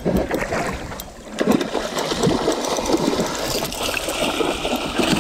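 Water splashing irregularly as a hooked longtail tuna thrashes at the surface beside the boat while it is gaffed.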